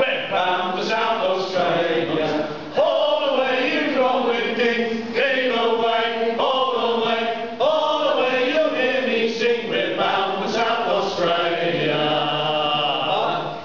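A group of men singing a sea shanty together in rhythmic phrases, ending on a long held note near the end.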